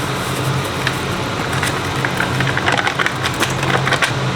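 Steady low hum of a kitchen fan. A quick run of light clicks and rattles comes in the second half.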